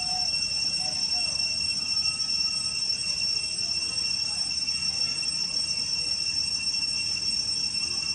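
Steady, high-pitched drone of cicadas.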